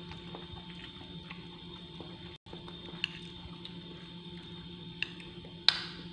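Metal spoon scraping and clinking against a ceramic plate while mixing rice, with sharp clinks about three seconds in, around five seconds, and the loudest just before the end. A steady hum runs underneath, and the sound cuts out for a moment a little before halfway.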